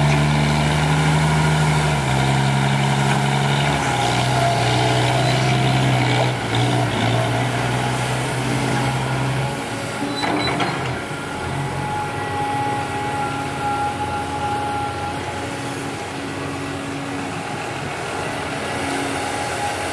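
Diesel engines of a CAT 320D excavator and a loaded six-wheel dump truck running. A loud, low engine note shifts in pitch in steps through the first half, then drops away about halfway, with a brief sharp sound, as the truck pulls off, leaving the excavator's engine running more quietly and steadily.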